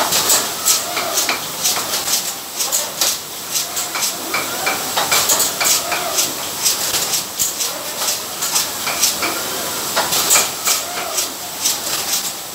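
Automatic bottle-capping line for trigger-sprayer bottles running: steady machine clatter of plastic bottles and parts, with frequent short hisses and clicks in quick, irregular succession.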